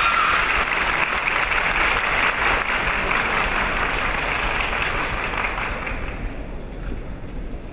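Crowd of spectators applauding in a large arena, the clapping loudest at first and dying away about six seconds in.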